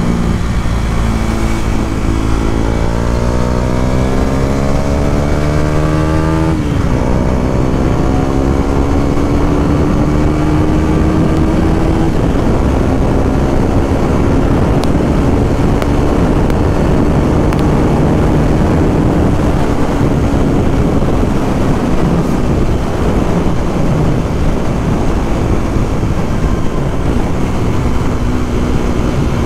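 2017 KTM 250 Duke's single-cylinder engine accelerating through the gears: the pitch climbs for about five seconds, drops sharply at an upshift, then climbs more slowly and settles into a steady cruise. Heavy wind rush on the microphone runs under it.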